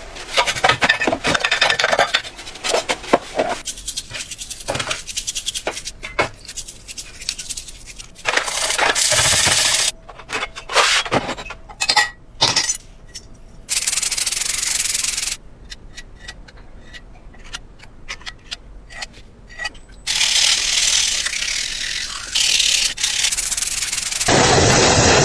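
Hand rubbing and scrubbing on tool parts in several short takes, with many scattered clicks and knocks. A steady, loud noise starts near the end.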